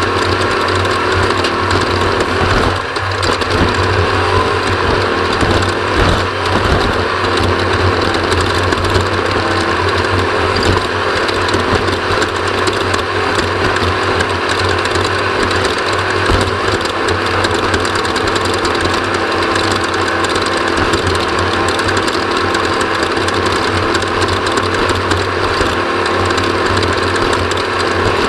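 Off-road motorcycle engine running steadily through the whole stretch, loud and continuous.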